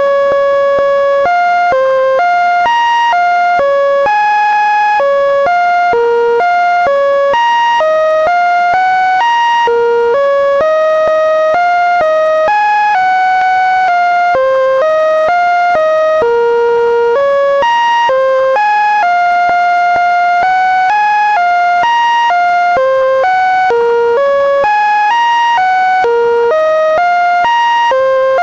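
Computer-generated sonification of the Linux kernel: an unbroken string of buzzy electronic tones that step from pitch to pitch every fraction of a second to about a second, like a tuneless melody.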